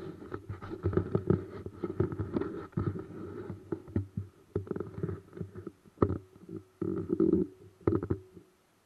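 Irregular rubbing, rumbling and bumping noise from a handheld camera being carried and moved around, broken by short quiet gaps.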